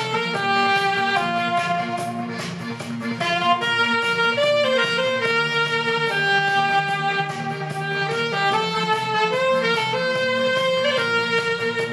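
Alto saxophone playing a melody of short and held notes over a backing track with bass and chords underneath.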